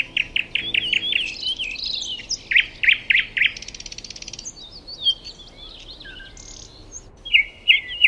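Songbirds singing: quick runs of repeated high chirps and short sweeping notes, thinning to scattered quieter calls midway, then a fresh run of chirps near the end.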